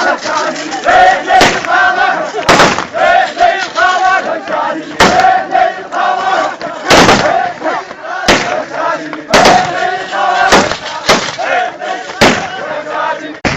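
A crowd of men chanting an Iraqi hosa together, short repeated shouted phrases, broken by about ten loud sharp bangs at irregular intervals.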